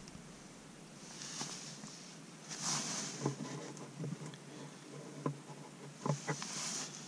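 Rustling handling noise in three swells, with a few short, light knocks of a metal cooking pot and utensils being moved.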